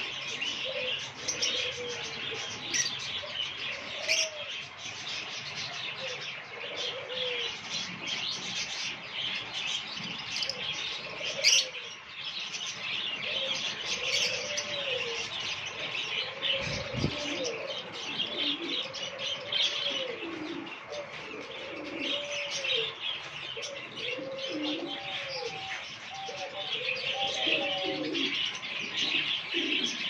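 Fischer's lovebirds chattering and chirping without a break. From about the middle on, low calls that rise and then fall repeat every second or two underneath.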